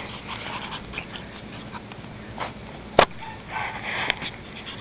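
Small sounds of Shiba Inu puppies moving about, with one sharp knock about three seconds in.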